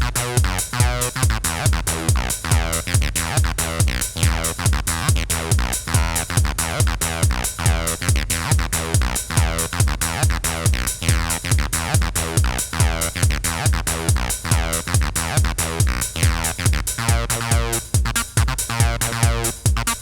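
Acid house played live on a Behringer RD-9 drum machine and a Behringer TD-3 bass synthesizer: a steady, even drum machine beat under a repeating sequenced synth bass line.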